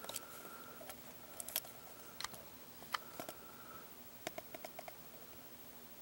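Faint scattered clicks and taps of fingers handling a three-pin plastic Bosch wiring connector from a crank position sensor harness, with a quick run of about six light clicks a little past the middle.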